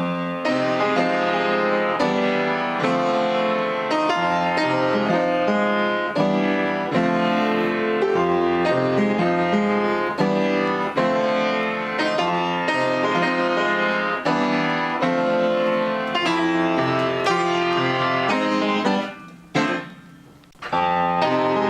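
Instrumental background music led by piano, which drops away briefly near the end and then comes back.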